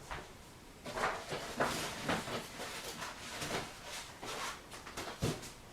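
Scattered light knocks, taps and rustles of eggs being handled in the kitchen and added to a banana cake batter, with one sharper knock near the end.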